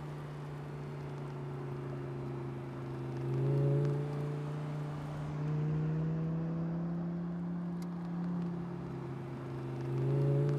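Audi R8 Spyder's V10 engine running steadily as the car drives along, its note swelling louder twice, about three and a half seconds in and again near the end.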